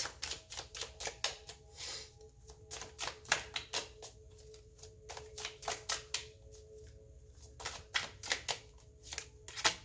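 A deck of tarot cards being shuffled by hand: a run of irregular crisp card snaps and flicks, several a second, thinning out in the middle and picking up again near the end.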